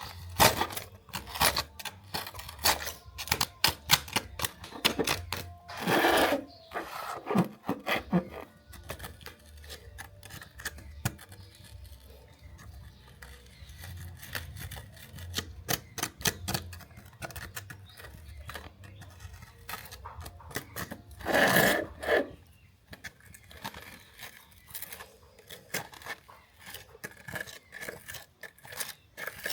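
Hands working on a small metal toy car at close range: a run of small clicks, taps and scrapes. Two louder rushing bursts come about six seconds in and again near twenty-two seconds.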